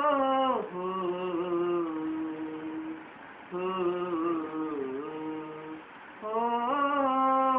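A man singing unaccompanied in Punjabi folk style, drawing out long wordless held notes. A high note fades, two lower, softer phrases follow, and a loud high note comes in again about six seconds in.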